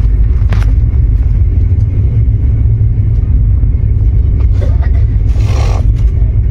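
Steady low rumble of a moving passenger train heard from inside the coach, with a brief higher sound about five and a half seconds in.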